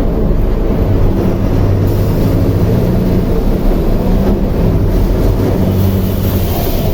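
Mercedes-Benz OF 1721L bus chassis' four-cylinder BlueTec 5 diesel engine running steadily, a loud, low drone.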